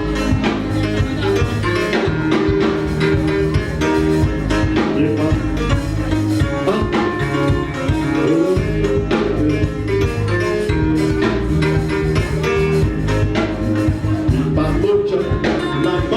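Church band music with guitar, bass and drums playing a steady beat.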